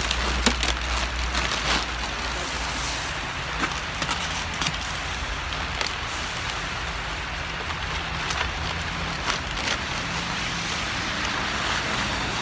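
Calcium chloride ice-melt pellets poured from a bag into a plastic push-spreader hopper, a rain-like pattering with a few sharp ticks near the start, over a steady hiss of highway traffic.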